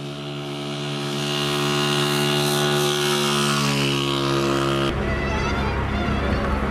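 A vehicle engine hum growing louder as it approaches, its pitch dipping slightly as it passes. About five seconds in, it cuts abruptly to the steady rushing of wind and road noise heard from inside a moving vehicle.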